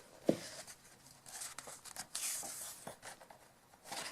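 Pages of a paper coloring book being handled and turned: a short tap about a third of a second in, then paper rustling and sliding.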